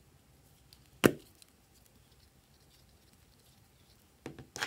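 A single sharp plastic pop about a second in, as the chick-shaped cap is pulled off a yellow plastic stick. Near the end comes a short run of small plastic clicks and rattles from handling.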